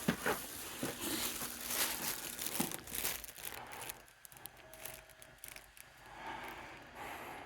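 JR East 209 series electric train running into the platform and slowing, a rushing, clattering noise with many sharp clicks that dies down about halfway through as the train comes to a stop.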